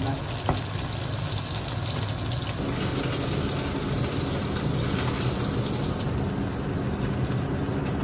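Steady hissing background noise with a low hum beneath it, and a light click about half a second in.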